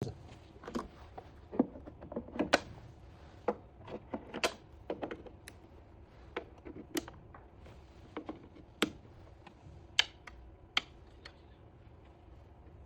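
Irregular light clicks and knocks, scattered a few at a time and fewer towards the end, over a faint steady hum.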